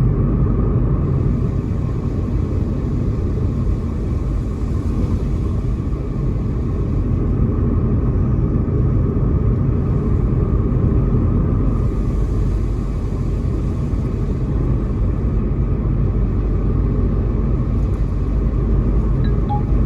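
Car driving along, a steady low rumble of engine and tyres on the road that holds even throughout.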